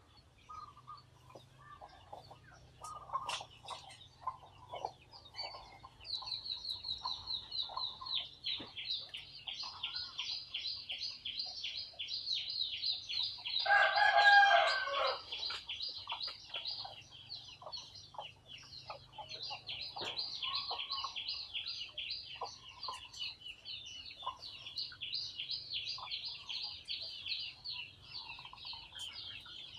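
A rooster crows once, about halfway through, the loudest sound here. Behind it runs a continuous high, rapidly pulsing trill from a few seconds in, with scattered short chirps early on.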